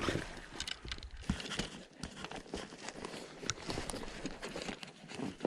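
Irregular crackling and crunching with scattered sharp clicks, from a person moving about and handling fishing gear.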